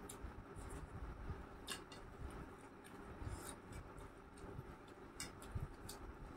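Eating by hand: faint chewing and mouth clicks, with fingers mixing rice on a steel plate, heard as scattered sharp little clicks.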